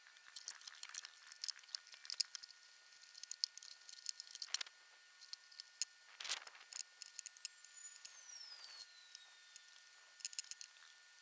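Faint scattered ticks and clicks with two soft knocks in the middle, from wooden spars being handled against a plywood boat hull. A thin falling whistle comes about eight seconds in.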